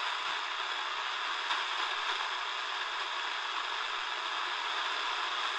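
Steady hiss of shortwave static from a Tecsun DR-910 portable radio's speaker, tuned slowly up from 5.67 MHz with no station coming through.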